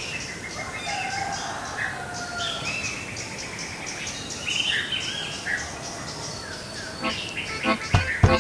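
Songbirds chirping and whistling, many short overlapping calls. Near the end, a fist knocks several times on a weathered wooden door, the sharp knocks the loudest sounds.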